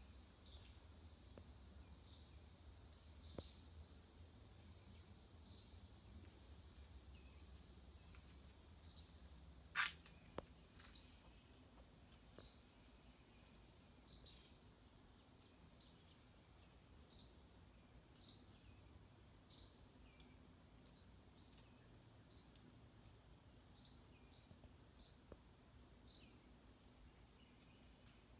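Faint outdoor insect chorus: a steady high drone with short high chirps repeating about once a second. A single sharp click stands out about ten seconds in.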